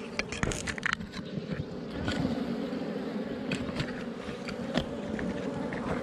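Honeybees from a wild colony under a rock buzzing steadily, the hum growing a little stronger about two seconds in. Sharp scrapes and clicks of a knife blade against soil and stone come in the first second, with a few more later.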